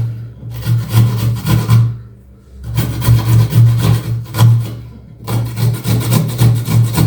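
Fresh ginger root being grated on a hand grater: rasping back-and-forth strokes, about two a second, with a few short pauses.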